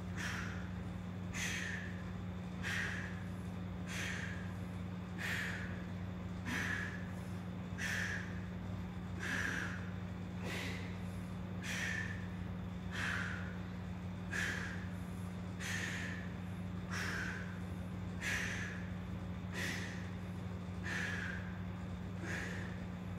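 A man's sharp exhaled breaths, one with each rep of a one-arm dumbbell row, coming evenly about every 1.3 seconds. A steady low hum runs underneath.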